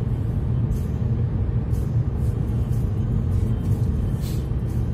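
Car driving along a highway: a steady low road and engine rumble, with brief ticks scattered through it.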